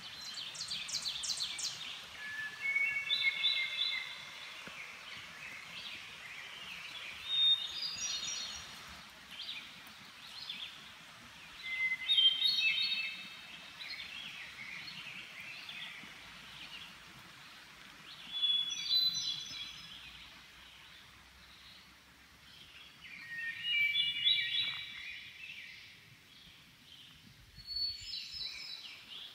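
A songbird singing short phrases of clear stepped notes, a phrase every few seconds, over a steady outdoor background hiss.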